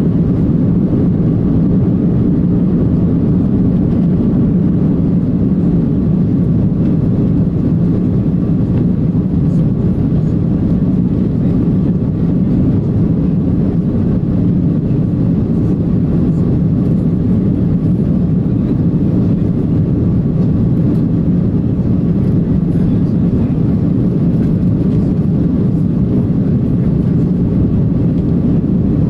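Steady, loud cabin noise of an Airbus A330-300 climbing out: its Rolls-Royce Trent 700 engines and the airflow heard as a deep, even rumble from inside the cabin, with a faint steady whine above it.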